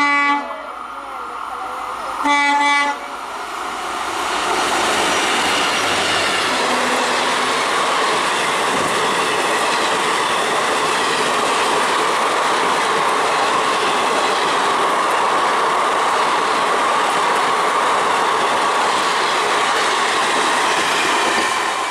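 An EMD diesel locomotive sounds two short horn blasts, one at the start and a second about two seconds later, as it runs through at speed. From about four seconds in, its passenger coaches rush past close by in a loud, steady roar of wheels on rail that lasts to the end.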